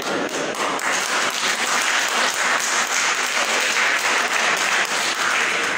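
Congregation applauding with dense clapping, which fades away near the end.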